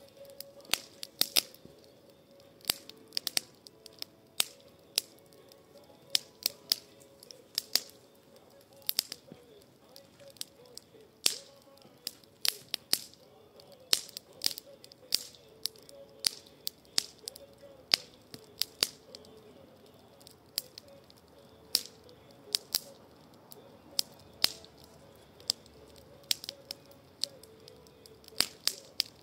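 Wood fire of pruned branches crackling and popping in a fire bowl: sharp, irregular snaps, several a second, over a faint wavering whine.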